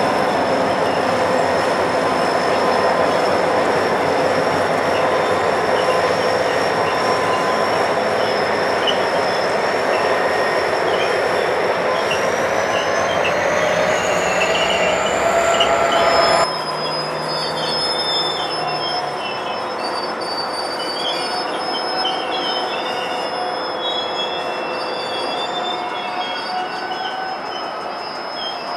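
Freight cars rolling past, their steel wheels squealing on the rail in several long held tones over a steady rumble, one squeal rising in pitch toward the middle. After a sudden cut about halfway through, the squealing goes on quieter and thinner.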